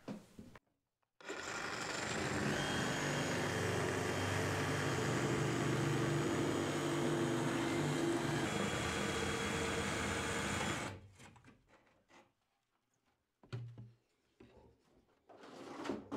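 Electric motor of an auto-feed drywall screw gun running steadily for about ten seconds, then stopping.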